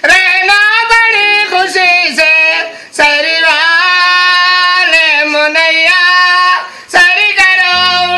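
A man singing loudly in a high voice, a Ramadan sehri wake-up call to rouse people for the pre-dawn meal. The phrases hold long notes with a wavering, ornamented pitch and break off briefly about three seconds in and again near seven seconds.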